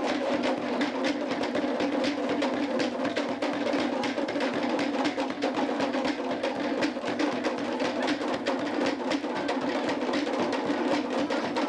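Tahitian drum ensemble playing a fast, steady dance rhythm: rapid, dense drum strokes with sharp wooden clicks.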